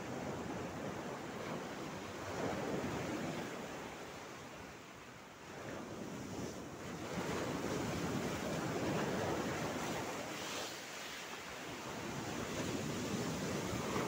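Mediterranean sea waves breaking over a flat rock ledge and washing back, in surges: a swell about two seconds in, a lull around five seconds, then a bigger crash and wash from about six and a half seconds, with spray off the rock.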